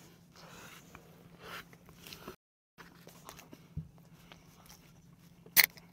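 Faint eating and handling sounds at a table, then near the end two sharp clicks about half a second apart as an aluminium beer can is taken hold of and handled on the tabletop.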